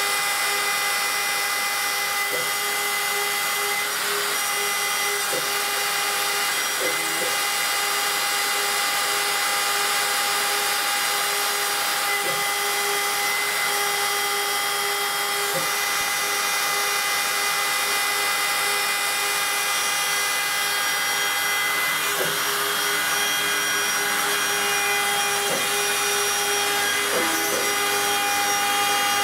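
Router spindle of a homemade CNC wood router running steadily while its small end mill cuts 10 mm aluminium plate (AlCuMg1): a constant whine with a strong high hiss of cutting and a few faint ticks.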